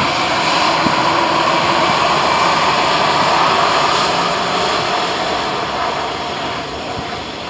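Airbus A320's jet engines running at taxi power as the airliner rolls past, a steady rushing noise that is loudest a few seconds in and then slowly fades as it moves away.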